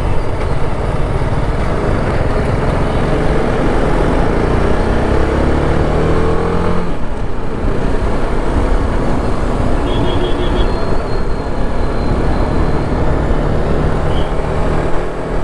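Single-cylinder motorcycle engine, heard from the rider's helmet, pulling away and accelerating through the gears: the pitch climbs for about seven seconds, dips at a shift, then climbs again under steady wind rush. A faint high whistle sounds briefly about two-thirds of the way through.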